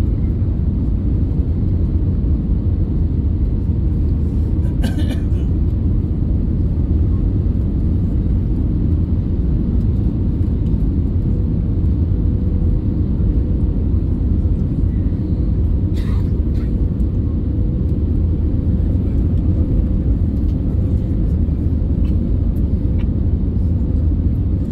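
Airbus A320neo cabin noise from a window seat by the wing on approach to landing: a steady low rumble of engines and airflow, with a faint steady hum. Two brief clicks stand out, about five and sixteen seconds in.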